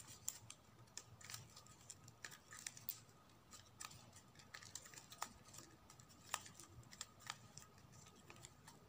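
Faint, irregular ticks and rustles of gold-edged ribbon being pulled snug and handled between fingers as the woven ribbon ball is tightened strand by strand.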